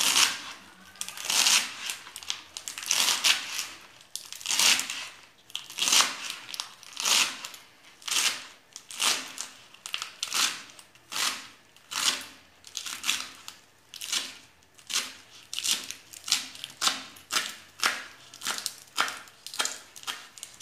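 Kitchen knife slicing through chard leaves and crisp stalks on a plastic cutting board: a steady series of crunchy cuts, each ending in a tap on the board, about one to two a second.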